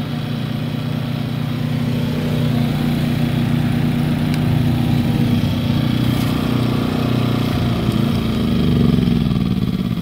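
Two gasoline inverter generators, a Predator 3500 and an A-iPower SUA2000i, running together with economy mode switched off. The engine note is steady, then its pitch swings up and down about eight seconds in.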